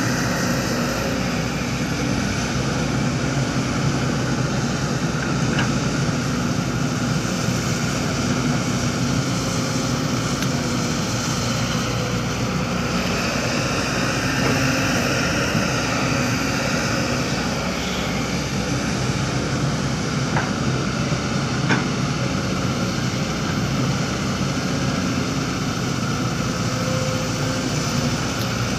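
Heavy construction machinery engines running steadily with a continuous drone, and a few faint sharp clicks or clanks.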